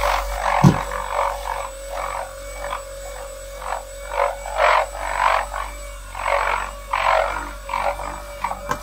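Electric buffer running on its speed-4 setting, its motor making a steady whine while the polishing pad spreads car wax over ceramic wall tiles in repeated swishing strokes, about two a second. There is a sharp knock under a second in.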